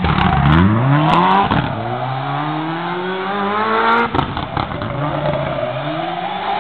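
Mitsubishi Lancer Evolution rally car's turbocharged four-cylinder engine revving hard as it accelerates past and away, the pitch climbing and dropping back at each gear change. Sharp exhaust pops come around the shifts, about a second in and again about four seconds in.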